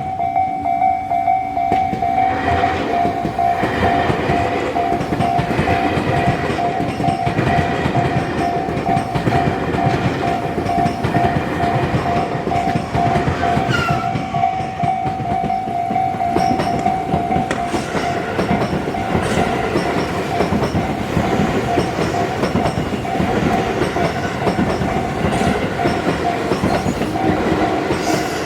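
Japanese level-crossing warning bell ringing in rapid, even repeated strokes, over the rumble and wheel noise of a Tobu Noda Line electric train passing over the crossing.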